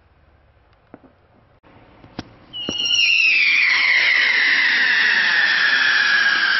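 Smoke UFO firework lifting off: a couple of sharp pops, then a loud whistle that starts about halfway through and slowly falls in pitch as the device climbs away.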